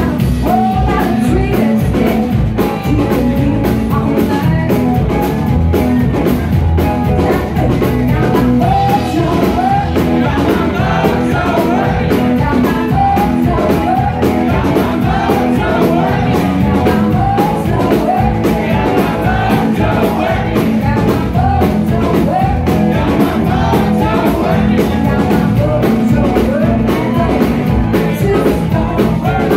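Live blues band playing loudly, electric guitars over bass guitar and a drum kit.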